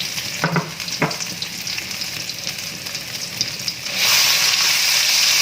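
Oil crackling lightly in a wok, with two short knocks in the first second or so; about four seconds in, the sizzling turns suddenly loud and stays loud as the ground spice paste is sautéed in the hot oil.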